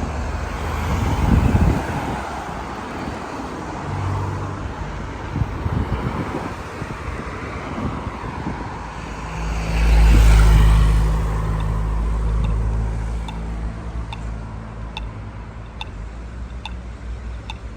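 Street traffic noise, with a motor vehicle passing close about ten seconds in, its low engine hum the loudest thing, then fading away. Light ticks come near the end.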